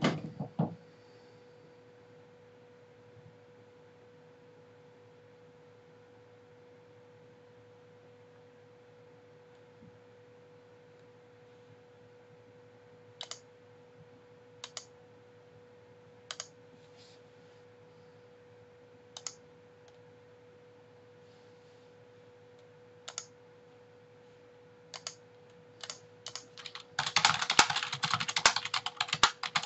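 Computer keyboard: scattered single key clicks a second or two apart, then fast continuous typing in the last few seconds. A steady faint high hum runs underneath.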